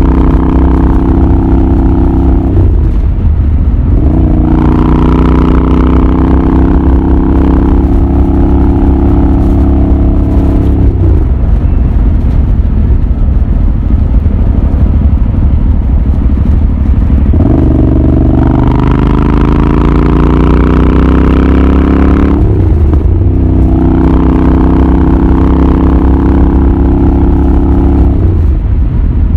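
Royal Enfield Continental GT 650's 648 cc parallel-twin engine and exhaust under way, the note breaking and resetting at several gear changes. In the middle it drops to a lower, rougher running for a few seconds, then the revs climb again.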